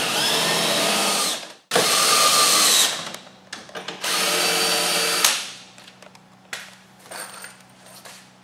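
Cordless drill with a 7/16-inch socket running bolts into a wooden crate panel: three whirring runs of about a second each, followed by a few light clicks.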